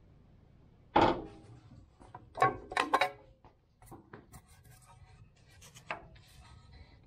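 A hand-operated sheet-metal brake and the sheet-metal tray being worked in it: a sharp metal clunk about a second in, a quick clatter of knocks a second and a half later, and another knock near the end as the bent tray is handled and lifted out.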